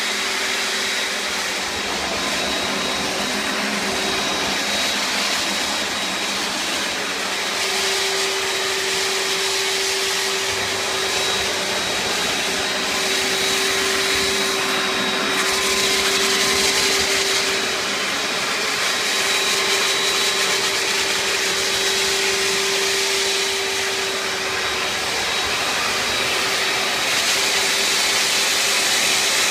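Hoover FloorMate Cordless hard-floor cleaner running in wash and dry mode, its suction motor and spinning scrub brushes making a loud, steady whir with a hum that comes and goes.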